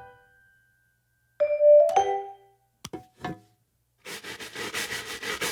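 A few short pitched notes, like a marimba, and a couple of light knocks. From about four seconds in, a wire brush scrapes rhythmically over a pan in quick even strokes, a sound effect imitating a train chugging.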